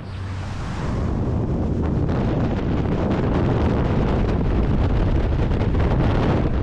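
Freefall wind rushing over the camera's microphone. It grows louder over the first second or so as the skydivers pick up speed after leaving the plane, then holds steady.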